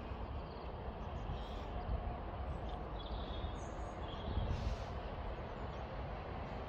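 Wind buffeting the microphone in an irregular low rumble, with small birds chirping a few times.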